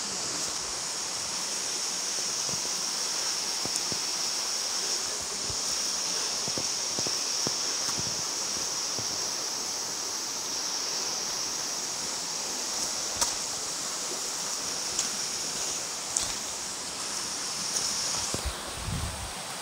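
Waterfall pouring, a steady rushing of water, with a continuous high-pitched buzz over it that cuts off shortly before the end.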